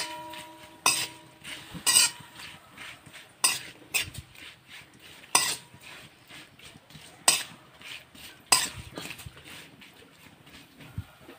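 Metal spoon stirring pork intestine and green chillies in a steel wok, scraping and knocking against the pan every second or two. The first knock leaves a brief metallic ring.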